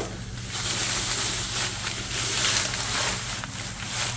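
Plastic bag rustling and crinkling as it is pulled off a ceramic cookie jar.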